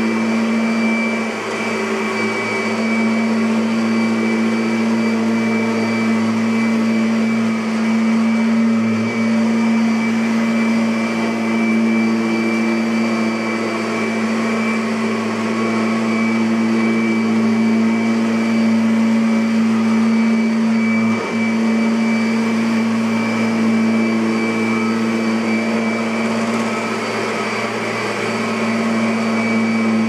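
Kirby Sentria G10D upright vacuum cleaner running on carpet as it is pushed back and forth: a steady motor hum with a thin high whine.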